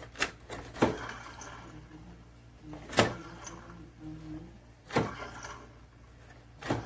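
Blower fan motor of a Haceb air conditioner's indoor unit humming steadily, with sharp knocks about every two seconds as it struggles to turn: the sound of its worn bearings.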